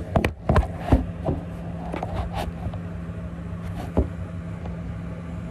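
Handling noise as a camera is picked up, moved and set down: a quick cluster of sharp knocks and rubs in the first second, a few more knocks over the next couple of seconds and one more about four seconds in, over a steady low hum.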